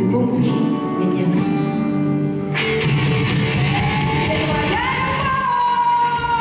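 Folk-rock song with a female lead vocal over a full band. Partway through, the band's sound brightens, and the singer slides up into a long held high note.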